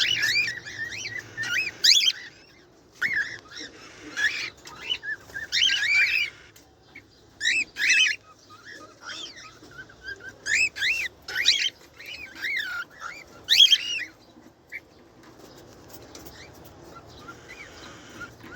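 Pet birds calling in loud bursts of sharp chirps that swoop up and down in pitch, fading to faint chatter after about 14 seconds.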